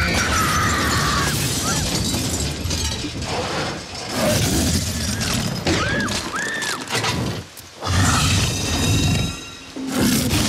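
Movie sound effects of a tyrannosaur crushing an overturned car: repeated crashes of crumpling metal and shattering glass, with several short high screams from inside the car over a steady rain-like hiss.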